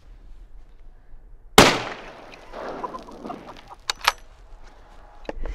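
A single .308 rifle shot, a 180-grain round fired into lake ice, about one and a half seconds in; the report dies away over the next two seconds. Two sharp clicks follow about four seconds in.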